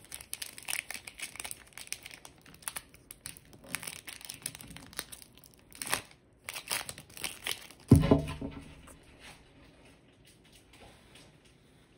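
Crinkling and tearing of a trading-card pack's plastic wrapper as it is pulled at to open it, with one louder sudden sound about eight seconds in; the crinkling dies away near the end.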